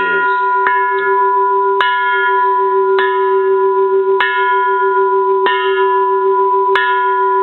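Bronze Japanese Buddhist temple bell from around the 1930s, struck with a wooden striker about seven times, roughly once every second and a quarter. Each strike adds a bright ring that fades over a steady low hum that wavers as it rings on.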